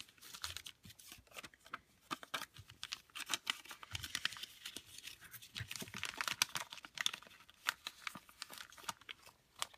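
Paper and plastic crinkling and rustling, with many small irregular clicks, as the small paper goodies tucked in a pocket letter's trading-card sleeves are handled and pulled out.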